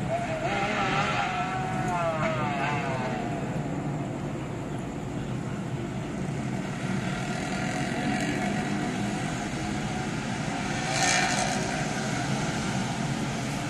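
Motorcycles with loud, modified exhausts revving along a city road, heard from high above over a steady hum of traffic. In the first few seconds several engines rise and fall in pitch, and a louder surge comes about eleven seconds in.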